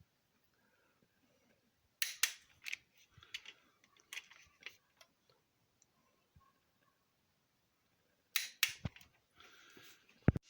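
Sharp metallic clicks from a wrench torquing the connecting-rod cap bolts on an LS V8 engine, a cluster of them about two seconds in and another about eight seconds in.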